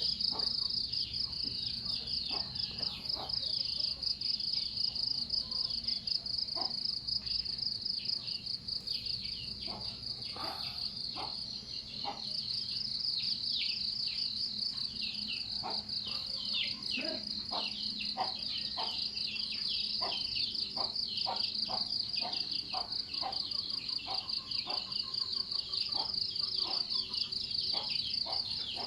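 Insects trilling in one unbroken high-pitched, finely pulsing drone, with many short falling bird chirps scattered over it.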